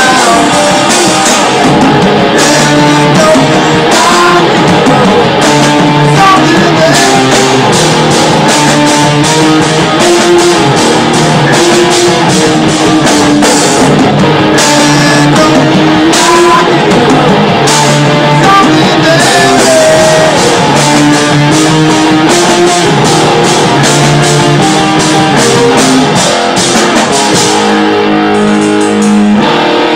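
Live rock band playing loudly: electric guitars and a drum kit, with a singer at the microphone. Near the end the drums and cymbals stop, leaving the guitars ringing on alone.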